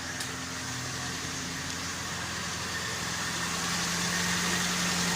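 Mitsubishi Lancer's 4G13 inline-four engine idling steadily, growing slightly louder in the second half.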